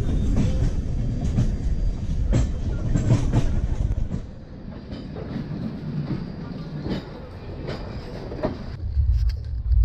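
Moving express train with LHB coaches, its wheels clattering over rail joints in a low rumble with irregular sharp clicks. About four seconds in the sound drops quieter, and near the end a deeper low rumble comes in.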